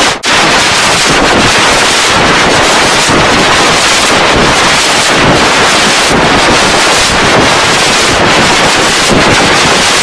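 Loud, harsh static-like noise filling all pitches evenly, with no tune or rhythm: audio mangled by editing effects. It drops out briefly just after the start.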